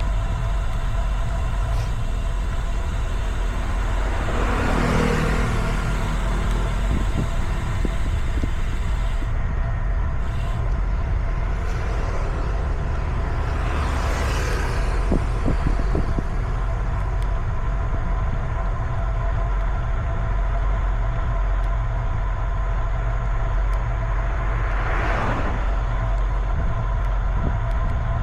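Road vehicles passing three times, each swelling up and fading away, over a steady low rumble.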